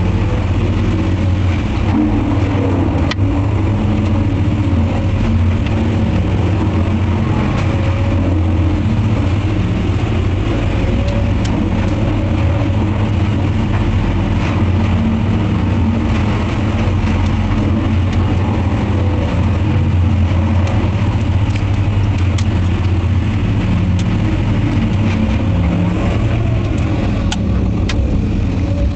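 Industrial tree grinder running steadily as it grinds wood down for mulch: a loud, even low drone with scattered sharp knocks.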